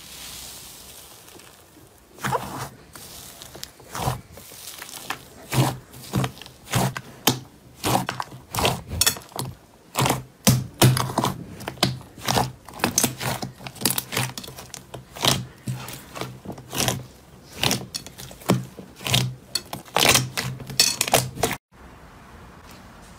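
Orange fluffy slime pressed and kneaded by hand, making a rapid, irregular stream of sticky pops and clicks as its air pockets burst, several a second. The popping begins about two seconds in and stops abruptly near the end.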